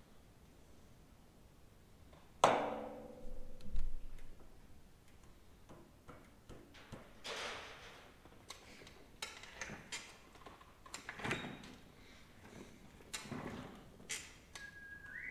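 Heavy steel gearbox parts being handled and fitted. About two and a half seconds in there is a loud metallic clank that rings on, then a second knock, followed by scattered clicks, knocks and rustles. Near the end comes a short squeak that steps up in pitch.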